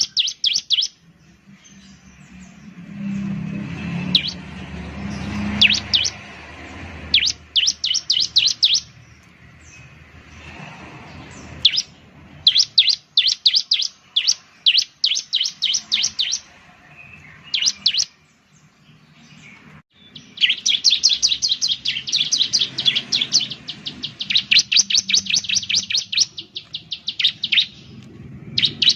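Bar-winged prinia (ciblek) singing: rapid runs of sharp, high chirps in bursts of a second or two, then a long unbroken run of fast chirps from about two-thirds of the way in.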